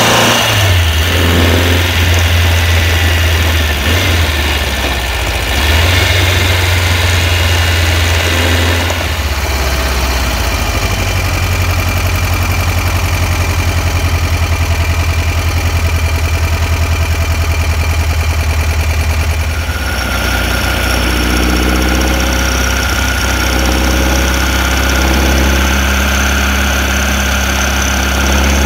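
The air-cooled 2007cc flat-four of a 1973 VW Beetle 1303S on Weber 48 IDA carburettors, running under way and heard close up from inside the engine bay. Its engine speed rises and falls several times in the first ten seconds, then holds steadier.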